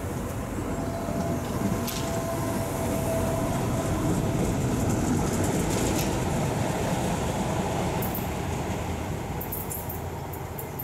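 Tyne and Wear Metrocar pulling out of the station and running past. Its rumble builds as the cars go by, with a faint whine in the first few seconds, then fades as the train draws away.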